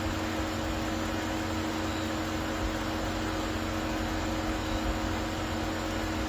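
A steady mechanical hum with a few constant tones over an even hiss, unchanging throughout.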